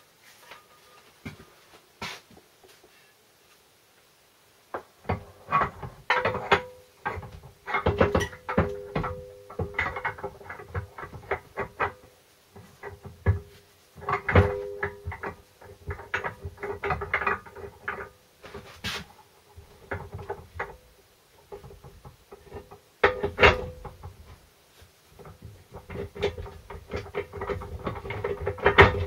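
A Land Rover Series 3 gearbox bell housing being lowered and worked down onto the main gearbox casing. After a few quiet seconds come irregular clusters of metal-on-metal clunks, knocks and scrapes, some with a brief ring, as the housing is seated.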